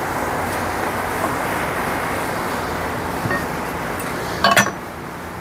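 Steady background traffic noise. About four and a half seconds in comes a short metallic clatter, a few quick clanks as the tire changer's steel bead bar strikes the wheel and changer.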